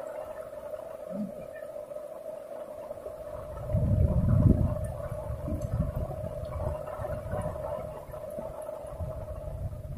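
A steady droning tone, with irregular low rumbling on the microphone starting about four seconds in, loudest briefly just after it begins.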